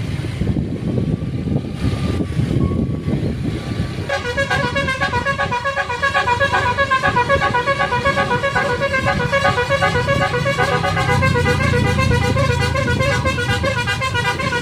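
Telolet basuri multi-tone bus horn played as a fast, chopped-up melody of short toots, starting about four seconds in, over the low rumble of the bus engine running.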